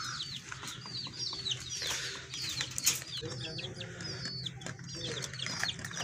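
A roomful of small cage birds chirping constantly, with many short high falling chirps several times a second. Lower clucking calls come in now and then.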